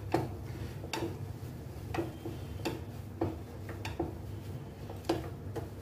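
Metal potato masher pressing boiled potatoes and knocking against the bottom of a nonstick frying pan, about eight sharp knocks, roughly one a second.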